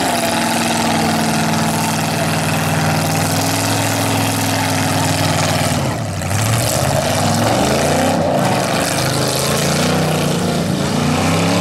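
V8 engines of full-size demolition derby cars running hard, a steady drone that dips about six seconds in, then rises and falls in pitch as the throttles are worked.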